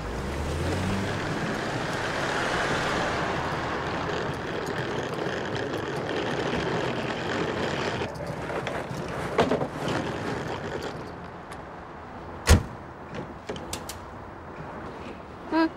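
Car engine running as a car moves off, with steady traffic noise. Then quieter outdoor background, a few knocks, and one sharp thump about twelve and a half seconds in.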